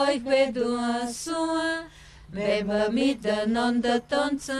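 Elderly women singing an old Carpathian German folk song unaccompanied, in slow held notes, with a short pause for breath about two seconds in.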